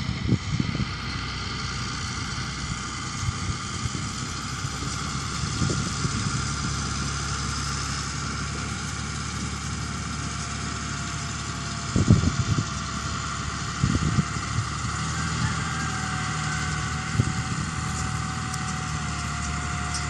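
John Deere 2840 diesel tractor running steadily under load as it pulls a New Holland round baler through the windrows, the engine and baler machinery giving an even hum. A few brief low thumps break in about twelve and fourteen seconds in.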